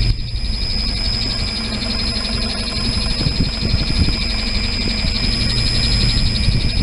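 Cylinder head surfacing machine running, its cutter milling the face of a V6 marine engine cylinder head: a loud, steady machine sound with a high whine and a fast, even ripple over a low drone.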